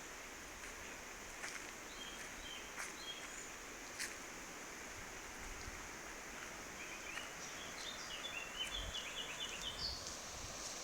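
Small birds chirping outdoors in short runs of quick notes: a brief run about two seconds in, then a longer series in the second half. Underneath is a steady high-pitched background drone, with a few sharp ticks.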